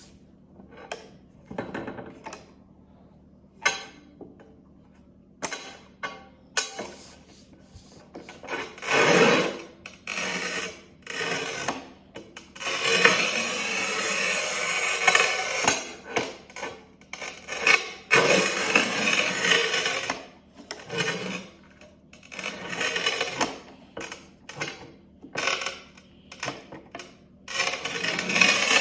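The scoring wheel of a QEP PRO 21 manual tile cutter scraping across the face of a tile several times, each pass lasting two to three seconds. Between the passes come clicks and knocks from the tile and the cutter's handle being moved and set.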